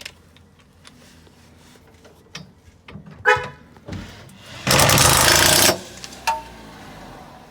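Scattered clicks and metal knocks of tools and parts, then a power tool run in one loud burst of about a second, typical of bolting down a strut brace.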